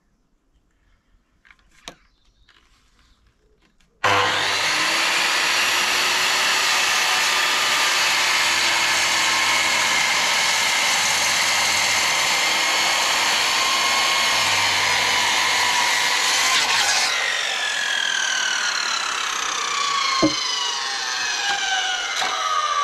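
Makita HS0600 270 mm corded circular saw starting suddenly about four seconds in and running loud and steady as it cuts through a thick timber sleeper. About seventeen seconds in it lets off and the blade winds down slowly, its whine falling in pitch, with a single knock near the end.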